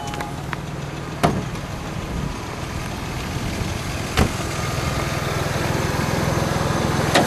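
Audi 2.7-litre twin-turbo V6 idling steadily, growing louder over the last few seconds. Three sharp knocks, about three seconds apart, sound over the idle.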